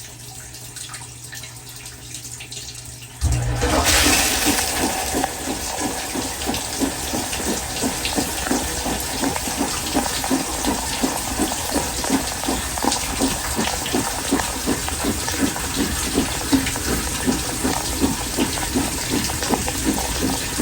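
Dishwasher heard from inside its tub. Water trickles in over a steady hum, then about three seconds in the wash motor starts and water sprays and splashes around the tub with a regular pulsing. The repairer blames weak spray on a failing wash motor: the lower spray arm does not spin and shoots water under the door, causing the leak.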